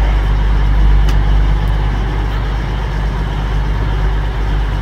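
Diesel train engines idling steadily with a low rumble and hum. A sharp click about a second in.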